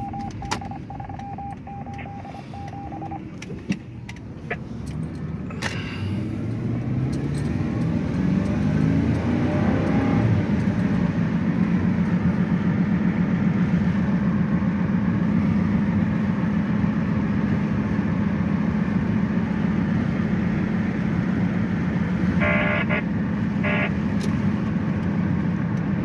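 A chime beeps for the first few seconds. Then the 2002 Ford F-150's engine pulls away, rising in pitch as it accelerates for several seconds, and settles into steady running at road speed, with a brief patch of clicking near the end.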